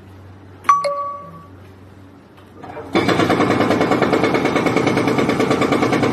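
A sharp metallic clang with a ringing tone about a second in. From about three seconds, a rapid, steady hammering rattle from the long-reach demolition excavator's hydraulic attachment working the concrete.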